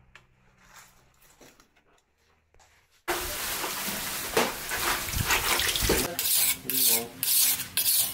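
Faint sounds of raw tuna being cut and handled. About three seconds in comes a sudden loud, steady rush of running water, joined near the end by repeated scraping strokes of a knife on a sharpening stone.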